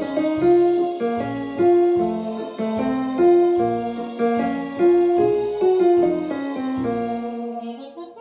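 Piano playing a slow song melody over bass notes and chords, with no voice; the playing thins out and gets quieter near the end.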